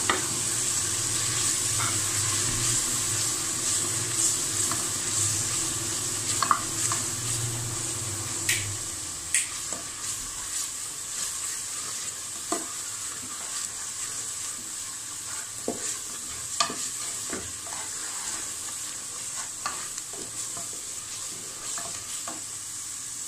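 Spiced onion-tomato masala sizzling as it fries in oil in an aluminium pressure cooker. It is being stirred with a spatula that scrapes and knocks against the pot every second or so.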